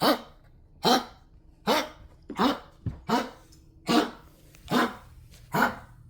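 A dog coughing in a regular series of short, harsh hacks, about one every 0.8 seconds, eight in all.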